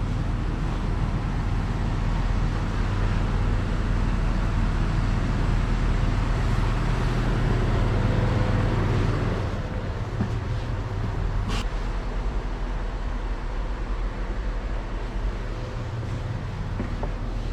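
Train running with a steady low rumble and hum, easing slightly about ten seconds in, with one sharp click partway through.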